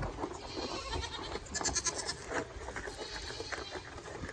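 Goats bleating, several short calls over a background of rustling.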